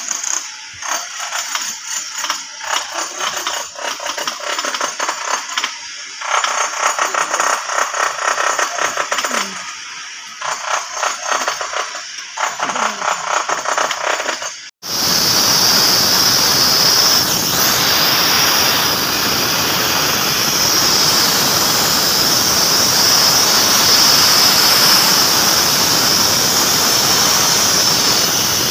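Metal clicking and rattling as a steel crane rail is worked into its channel with hand tools. About halfway through it cuts to a steady, loud rush of compressed air from a hose fed by a portable air compressor, blowing out the rail trench.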